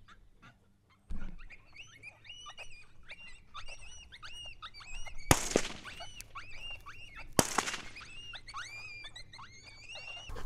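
Two gunshots about two seconds apart, over a steady run of rapid high-pitched yipping and squealing animal calls that start about a second in.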